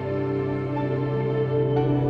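Background music with slow, sustained chords that change near the start and again near the end.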